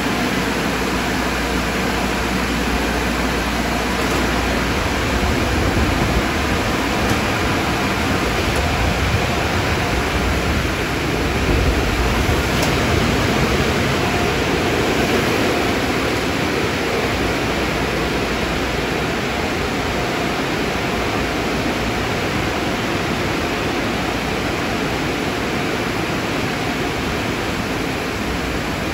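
Steady rushing noise of car wash machinery, with a low rumble for about the first ten seconds.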